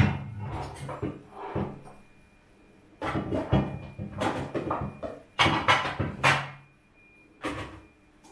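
Household kitchen clatter: objects being handled and set down, with knocks like cupboard doors or drawers, in several bursts separated by short pauses.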